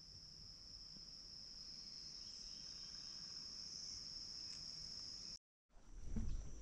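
Insects trilling steadily at a single high pitch in the background. Near the end the sound cuts out for a moment, then louder rustling and handling noise follows as the hunter moves and gets up.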